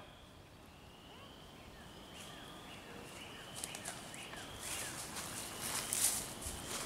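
Footsteps crunching through dry fallen leaves, growing louder from about halfway in. Faint short, falling bird chirps sound in the background.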